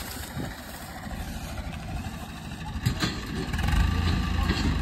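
Tractor diesel engine running under load, with a knock about three seconds in. The engine gets louder and deeper about three and a half seconds in.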